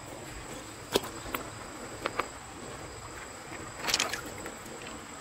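Night insects such as crickets, with a thin steady high trill over a soft background hiss. A few sharp clicks sound about one and two seconds in, and a short scratchy noise about four seconds in.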